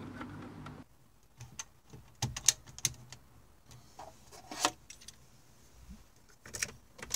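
Car keys jangling, with short clicks and rattles in a few scattered clusters as the ignition key is handled and turned.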